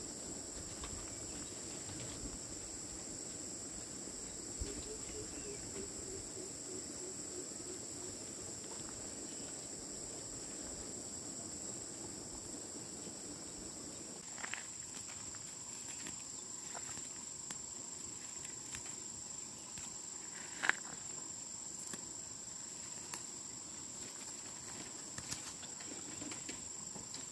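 Insect chorus: a steady, high-pitched drone that never lets up, with a few scattered soft knocks and clicks, the sharpest about three-quarters of the way through.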